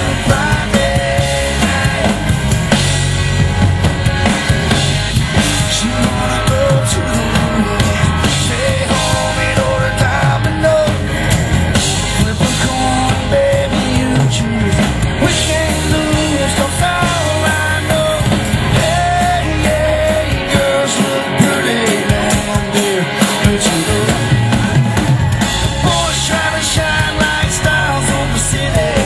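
Live band playing a rock-style song: a male lead vocal over drum kit, electric guitar, bass and keyboard. The bass drops out briefly about 21 seconds in, then comes back.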